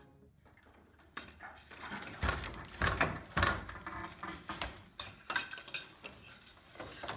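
Wooden hand loom being worked: irregular wooden clacks and knocks as the warp threads shift, starting about a second in.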